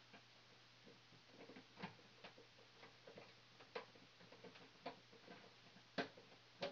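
Faint, irregular small clicks and taps of hands and a screwdriver working wires into a plastic thermostat base, with a sharper click about six seconds in, over a low steady hum.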